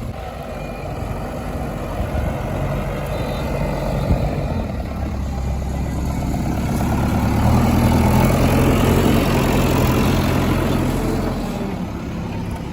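Heavy diesel engine running, its speed and loudness building about halfway through, holding, then easing back near the end.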